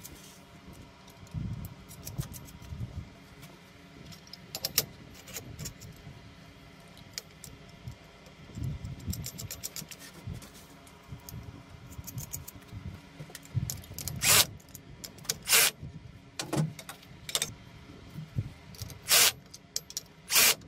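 Steel parts of a homemade armature-lathe fixture clinking and rattling as they are handled in a bench vise, with several short, louder metallic clanks in the second half.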